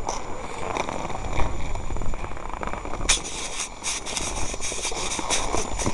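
Wind rumbling on the microphone of a handheld camera on a ski slope. From about three seconds in, rapid crackling and rubbing handling noise joins it as the camera is moved and tilted.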